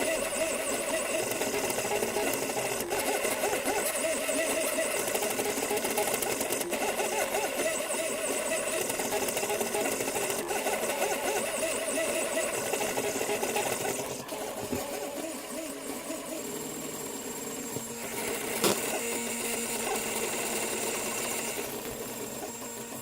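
3D printer running, its stepper motors whirring with a wavering, shifting pitch as the print head moves. About two thirds of the way through it gets quieter, and a single sharp click comes near the end.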